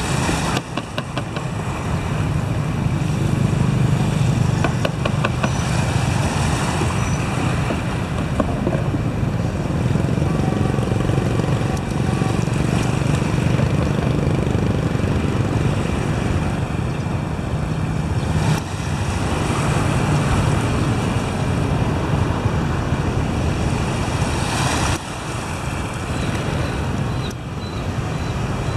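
Steady low rumble of motor traffic, with a hiss over it that drops briefly near the end.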